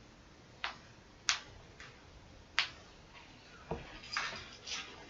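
Plastic keycaps clicking as they are handled and set onto the keyboard: about five sharp separate clicks, then a duller knock and a short rustle near the end.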